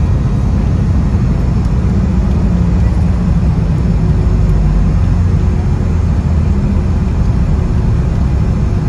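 Boeing 717-200 on its landing roll, heard from inside the cabin: a steady low rumble of the wheels on the runway together with the rear-mounted Rolls-Royce BR715 engines.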